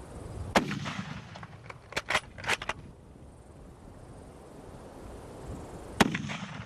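Two rifle shots from a 1903 Springfield bolt-action rifle, each a sharp crack with a rumbling tail, about half a second in and again near the end. In between, around two seconds in, comes a quick run of metallic clicks as the bolt is worked to chamber the next round.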